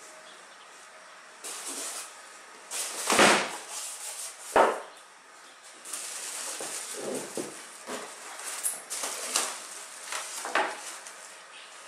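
Polystyrene foam end caps being worked off a plastic-wrapped PC case: the plastic wrap crinkling and the foam rubbing and scraping, with small clicks throughout. Two loud knocks come a few seconds in, before the rustling starts.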